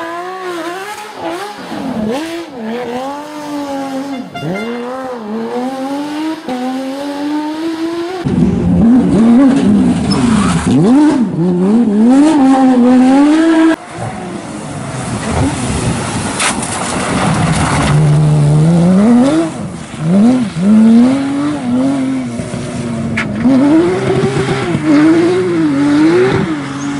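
Porsche racing car engines accelerating and lifting off, the pitch climbing and dropping again and again with gear changes. Several separate passages follow each other, with abrupt cuts about 8 and 14 seconds in.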